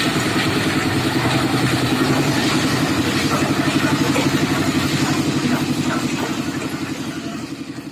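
Concrete mixer engine running steadily with a fast, even pulsing and some clatter, fading out near the end.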